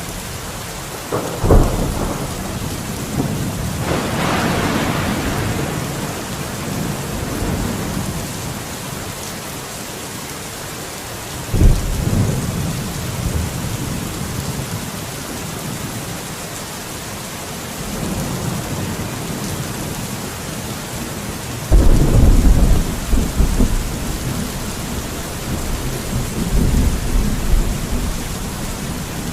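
Steady rain falling, broken by three sudden low rumbles: one about a second and a half in, one about twelve seconds in, and a louder, longer one about twenty-two seconds in.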